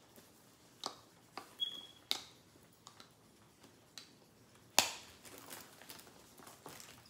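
Light clicks and knocks from a handbag being handled and its strap hardware fastened, with one brief metallic ring. A sharper click comes past the middle.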